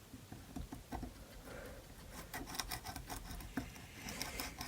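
Small clicks and light rubbing of an electrical plug connector being wiggled loose on a VW distributor. The clicks come more thickly from about halfway through.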